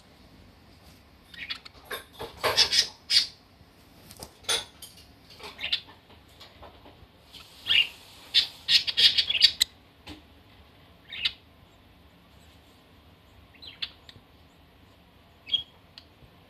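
Budgerigar squawking and chirping in short, scattered calls, loudest in two clusters about two seconds in and around eight to nine seconds, with fainter single calls after.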